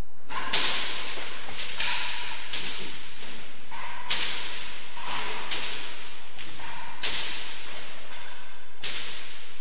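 A fast racket-sport rally in a hard-walled indoor court: sharp cracks of the ball off rackets, walls and floor, about two a second. Each crack echoes and rings briefly in the hall.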